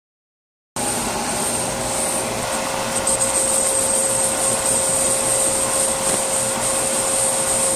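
Bosch brake lathe running with a brake rotor spinning on its arbor: a steady mechanical drone with a held mid-pitch whine and a high hiss. It comes in abruptly after about a second of silence.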